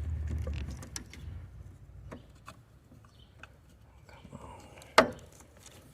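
Scattered light clicks and taps of hand work loosening a motorhome's absorption refrigerator from its cabinet, with one sharp knock about five seconds in.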